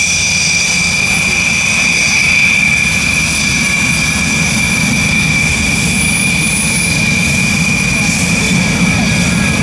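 Twin Snecma M88 jet engines of a two-seat Dassault Rafale taxiing at low power: a steady high-pitched whine over a low rumble.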